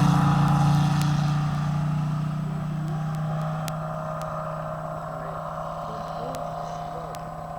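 Radio-controlled P-47 Thunderbolt model plane in flight, its onboard sound effect giving a steady droning piston-engine note that slowly fades as the plane moves away.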